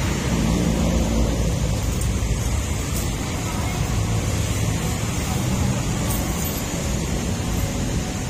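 Steady city street traffic noise with a low rumble, and background chatter from people nearby.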